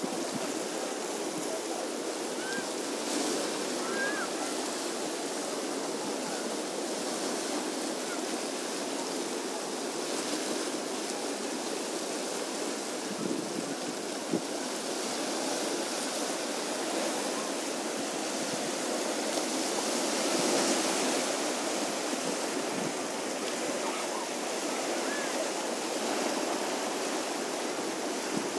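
Small sea waves washing steadily over a rocky shore, an even wash of surf with a gentle swell in loudness, and a few faint short chirps.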